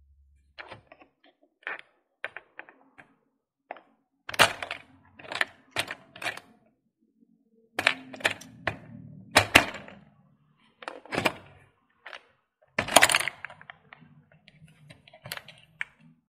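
Small plastic toy ball claw machine being played: its buttons clicking and the plastic claw and small plastic balls knocking and clattering inside the dome, in irregular sharp clicks with several louder clatters.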